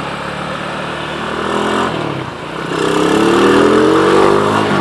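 Rusi SS250 sport bike's engine running under way, dipping briefly about two seconds in, then accelerating with its pitch climbing steadily and the sound getting louder.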